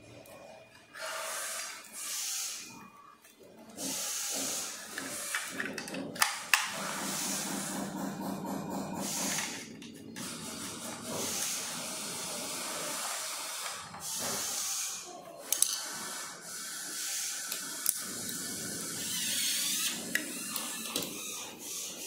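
Rubbing and rustling of hands handling the scooter's plastic deck parts and cables, over a hiss. A few sharp clicks stand out, about six seconds in and again after fifteen seconds.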